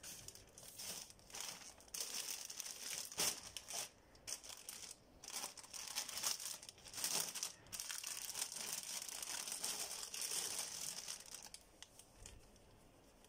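Clear plastic wrapping and a plastic courier bag crinkling as they are handled and pulled open around a folded saree, in irregular bursts that die down near the end.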